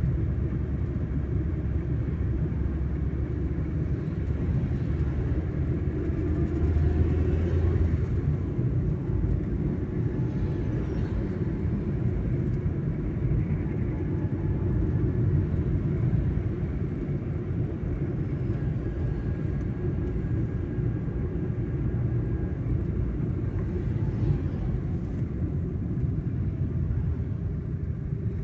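Steady low rumble of a car's engine and tyres heard from inside the cabin while it drives in heavy motorway traffic, swelling a little about seven seconds in.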